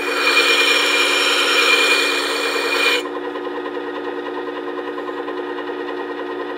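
Steel chip breaker from a hand plane being ground against the coarse spinning abrasive disc of a Work Sharp sharpener, a steady grinding rasp over the motor's hum, to curve its edge. About three seconds in the grinding stops suddenly as the piece is lifted off, and the sharpener's motor keeps running with a steady hum.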